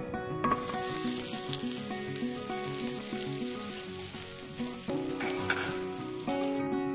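Marinated, steamed beef tikka pieces sizzling on a hot flat griddle (tawa). The hiss starts suddenly about half a second in as the meat hits the hot surface, and it cuts off abruptly just before the end.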